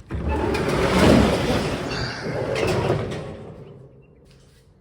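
A large door sliding open with a long scraping, rattling noise, about three and a half seconds, that starts suddenly and fades away.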